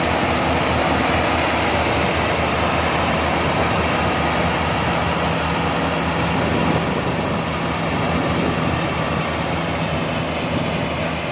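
A paddy harvester running steadily, its engine hum under the even noise of its machinery.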